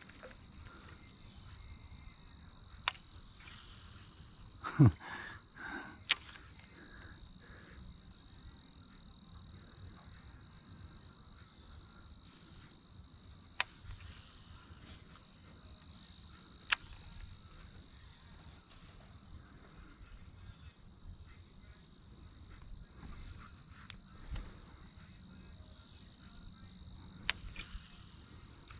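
Insects chirring in a steady high-pitched drone, broken by a few sharp clicks and a single louder thud about five seconds in.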